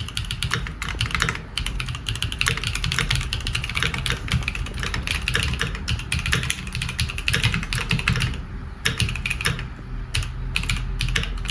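Keychron Q3 Pro mechanical keyboard with tactile switches being typed on quickly: a dense run of key clicks, with a short pause about eight seconds in.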